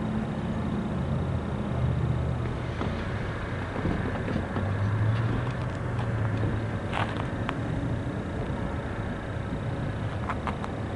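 Diesel switching locomotive's engine running with a low, steady rumble whose pitch shifts slightly, with a couple of sharp metallic clicks about seven seconds in.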